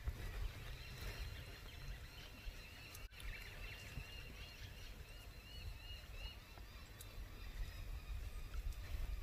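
Faint outdoor birdsong: a bird repeats a short chirp several times a second for a few seconds in the middle, over a low rumble of light breeze on the microphone.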